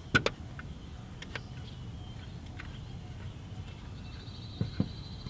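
Car jack being set in place under the car: a couple of sharp metal clicks just after the start, a few fainter taps, and two knocks near the end, over a steady low outdoor rumble. A faint high trill comes in near the end.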